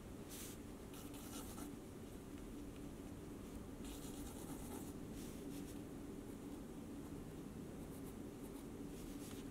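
Mechanical pencil lead scratching on sketchbook paper as characters are sketched, faint and in short irregular bursts of strokes.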